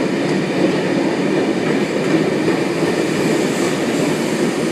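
Sydney Trains S set double-deck electric train running along the platform, a steady noise of wheels and traction motors.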